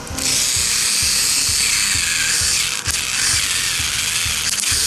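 Plarail toy locomotive's small electric motor and plastic gears running on a test, a steady high whirring that switches on suddenly at the start.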